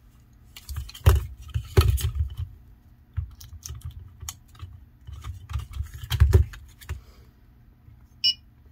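Clicks and knocks of an opened plastic EMF meter's case and battery being handled, then, near the end, one short electronic beep from the meter's buzzer as it powers on.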